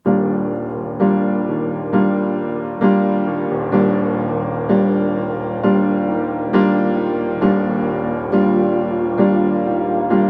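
Background piano music: slow, evenly spaced chords struck about once a second, each fading before the next.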